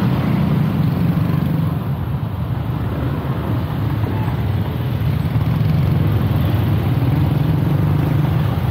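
Motor scooter and motorcycle engines running at a crawl in dense two-wheeler traffic: a steady low engine hum, with the rider's Honda PCX 150 scooter engine the nearest.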